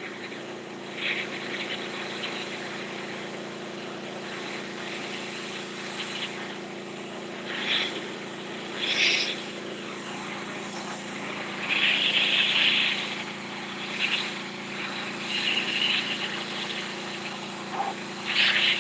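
Simpson 4200 PSI gas pressure washer running steadily, its high-pressure spray hissing on concrete steps. The hiss swells in short loud bursts several times as the jet sweeps across the stone.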